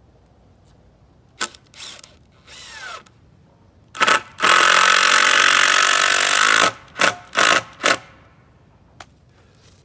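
Power drill driving into wood: a short trigger pull, a steady run under load of about two seconds, then three quick bursts. Softer knocks of handling come before it.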